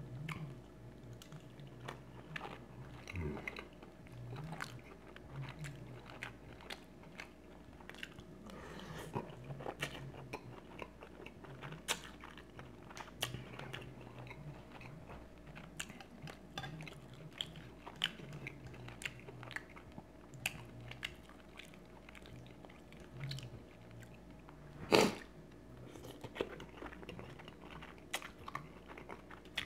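A person chewing food close to the microphone: wet mouth clicks and smacks coming irregularly. There is one sharper, louder hit about twenty-five seconds in.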